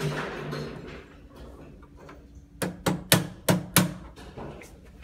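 A short rustle of handling, then five quick sharp knocks on hard material, about a quarter of a second apart, about halfway through.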